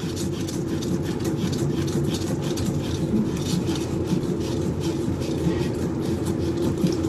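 Scraping and rattling as a gloved hand unscrews the plastic locknut of a toilet fill valve from under the tank, with a steady low hum underneath.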